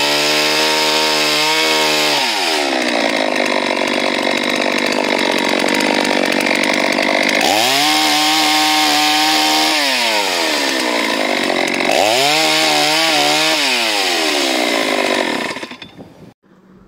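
72cc Farmac F380 two-stroke chainsaw cutting firewood logs at full throttle: the engine pitch sinks as the chain loads in the wood and rises again as it comes free, twice. The saw falls quiet about a second before the end.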